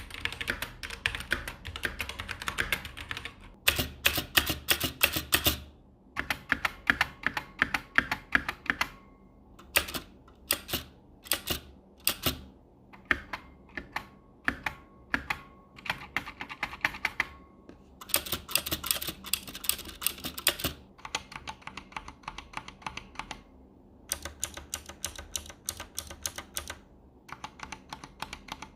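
Typing test on an AORUS K9 Optical mechanical keyboard with red (linear) optical switches: fast runs of key clicks in bursts, broken by short pauses. Around the middle the keys are struck one at a time, about two a second, before fast typing resumes.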